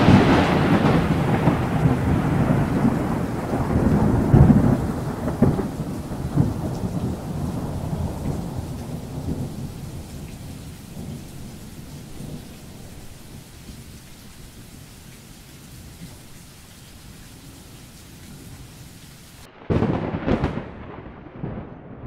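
Thunderstorm audio from an exhibit soundtrack: a loud thunderclap right at the start, then a long rolling rumble with rain hiss that fades away over about ten seconds. A short burst of sound comes near the end after an abrupt break.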